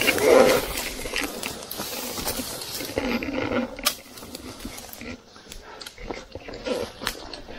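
Heavy, gasping breathing and grunts from a hiker straining up a steep, overgrown slope, in short bursts, with brush rustling and sharp twig snaps and footfalls in between.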